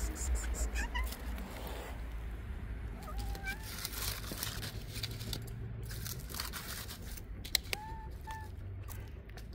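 Faint, short cat mews, a few scattered calls with a pair close together near the end, over rustling and scattered clicks.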